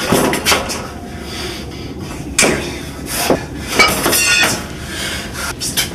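Knocks, bumps and rustling from a scuffle with a handheld camera, several sharp knocks standing out between about two and four seconds in.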